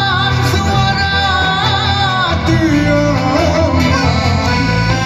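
Live band music played through a PA: keyboard, hand-held frame drum and bass guitar under a sung melody, at a steady level.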